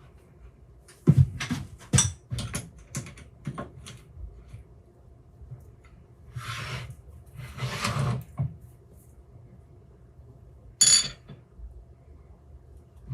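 Metal tools and parts being handled during machine setup: a quick run of knocks and clinks, two longer rubbing or sliding sounds a few seconds later, and one sharp ringing clink near the end.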